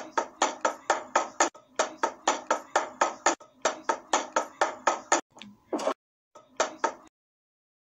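A quick, even series of sharp taps, about four or five a second, that breaks off about five seconds in; after a short pause there are two more taps, then nothing.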